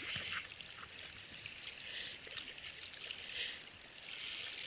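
Spinning reel's drag buzzing in short spurts, then running steadily from about four seconds in as a hooked sea bass pulls line off against it. Water lapping softly underneath.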